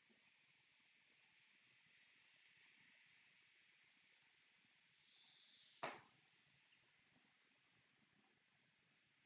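Faint forest birdsong: short bursts of rapid, high-pitched chirps every second or two, with one brief whistled note and a single sharp click about six seconds in.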